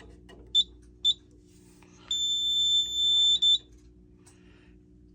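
High-pitched electronic beeps from a fire alarm system under test: two short beeps, then one long tone of about a second and a half, then a short beep.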